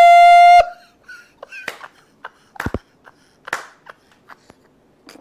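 A man's laughing shriek: one loud, high-pitched held squeal that cuts off suddenly about half a second in, followed by faint scattered gasps and clicks.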